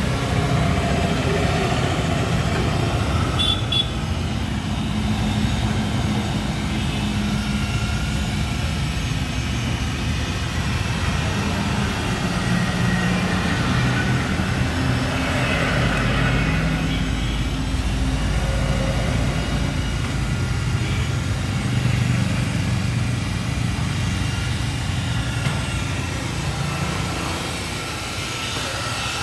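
Electric rotary car polisher running steadily, its foam pad buffing car body paint, with small shifts in the motor's pitch as it is pressed and moved over the panel.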